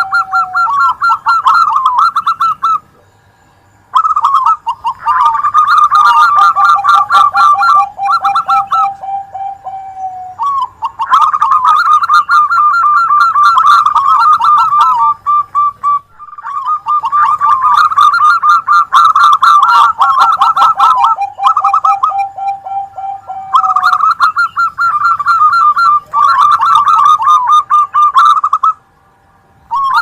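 Zebra doves (perkutut) cooing: fast, trilled coo phrases from at least two birds, one higher and one lower, overlapping. There are short breaks about three seconds in and near the end.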